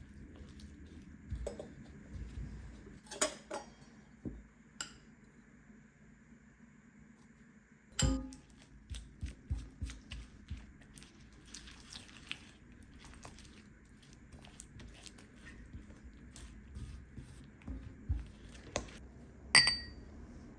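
Dishes and utensils handled, with scattered knocks and light clinks; a louder knock about eight seconds in and one ringing clink near the end.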